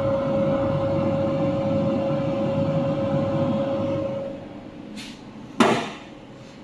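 Laser welding machine running with a steady hum and a held tone, which stops about four seconds in; then a light click and a sharp, loud click.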